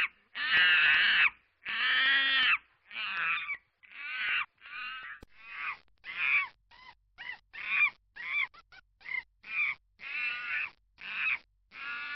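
Monkeys chattering: a string of harsh, hoarse calls with arching pitch. A few long calls come first, then shorter ones at about two a second.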